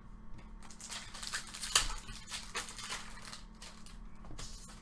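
Trading cards being handled and slid against each other: a run of dry rustling, sliding strokes with one sharp click about two seconds in, then fainter light ticks.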